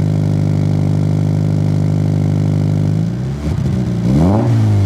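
Subaru BRZ's flat-four boxer engine, breathing through a newly fitted aftermarket exhaust, idling steadily, then revved once about three seconds in, the pitch climbing and dropping back.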